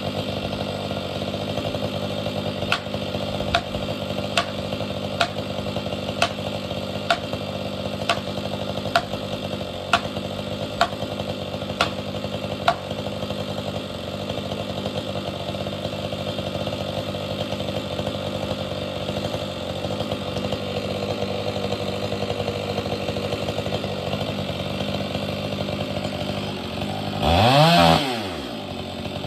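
Stihl MS 500i fuel-injected two-stroke chainsaw running steadily, with a sharp click about once a second for the first ten seconds or so. Near the end the engine revs up briefly and drops back.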